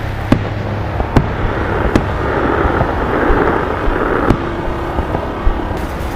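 Festive salute fireworks going off: sharp bangs about a second apart, then a rushing swell, then dense rapid crackling near the end.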